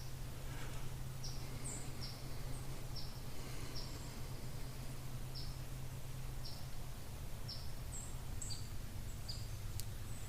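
Small birds in the woods giving short, high, downward chip calls, roughly one every second, over a steady low hum.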